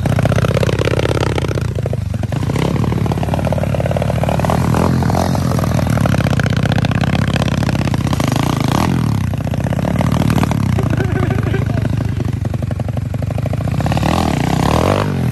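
Pit bike's single-cylinder engine running hard, revving up and falling back several times over.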